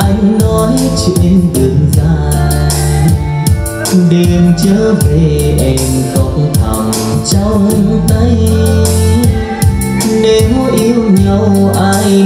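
A song playing: a singer over a steady drum beat with heavy bass.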